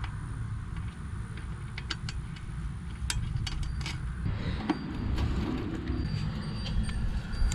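Wind rumbling on the microphone, with scattered light clicks and clinks of handling, and faint thin ringing tones joining about halfway through.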